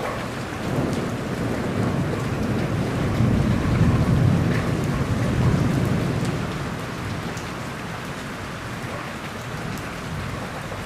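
Steady heavy rain falling, with a low roll of thunder that swells a second or so in, is loudest around the middle and then dies away.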